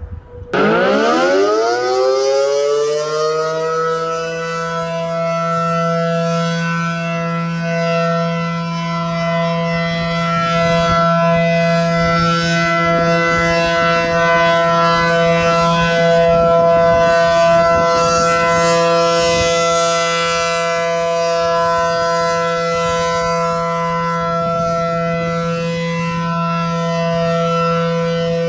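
ACA Allertor 125 outdoor warning siren winding up quickly from silence, then holding one steady, loud wailing tone rich in overtones: the steady alert signal of a siren test.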